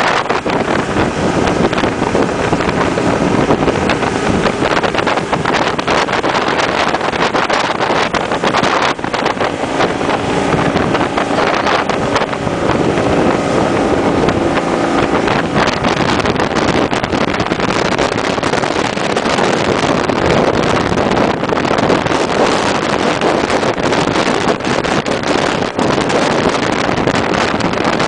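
Small motorboat running at speed: a steady engine drone under rushing water and spray from the hull, with wind buffeting the microphone.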